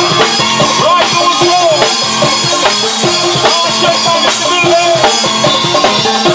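Drum kit played to a steady beat, kick and snare strikes over sustained melodic instruments, as band music.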